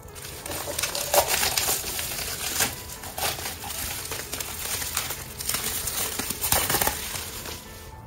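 Plastic bubble wrap crinkling and crackling in irregular surges as hands unwrap a glass mug, dying away near the end. Soft background music runs underneath.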